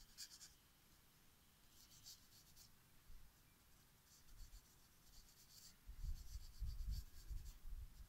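Pencil lead scratching on paper in short strokes while sketching and shading, faint. Low thumps come in over the last couple of seconds.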